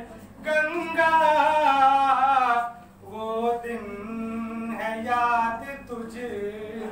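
A man singing solo, unaccompanied, holding long notes that bend in pitch, with a short break between phrases about three seconds in.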